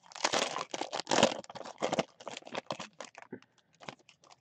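Foil wrapper of a baseball card pack crinkling and tearing as it is ripped open by hand. The crackling is dense for about the first two seconds, then thins to scattered crackles as the cards are pulled out.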